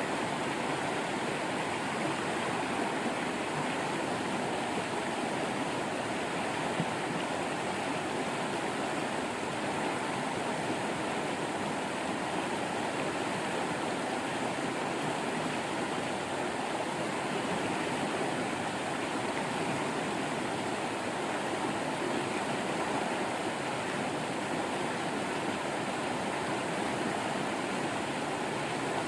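Waterfall water rushing and splashing in a steady, unbroken flow.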